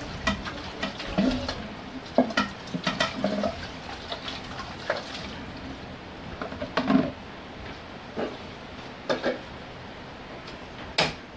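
A metal wok being rinsed under a running tap and handled, with repeated clanks and knocks of the pan against the sink and stove. A single sharp click near the end.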